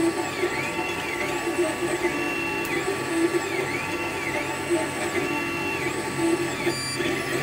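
Desktop 3D printer laying down its first layer: the stepper motors whine in tones that rise and fall about once a second as the print head speeds up and slows through each pass, over a steady mechanical hum.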